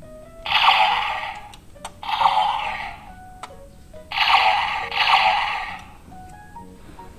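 Electronic sound effects from a DX Ultraman Trigger toy with its Sky Type Hyper Key: a beeping stepped tune, broken by four noisy effect bursts of about a second each.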